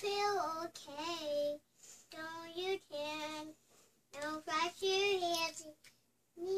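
A young girl singing alone without accompaniment, several short phrases with held notes and brief pauses between them.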